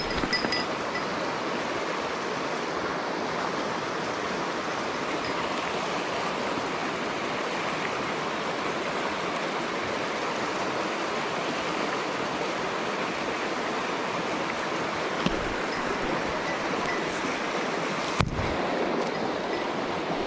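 Mountain stream running over rocks: a steady, even rushing of water. Two brief knocks, one faint about fifteen seconds in and a sharper one about eighteen seconds in.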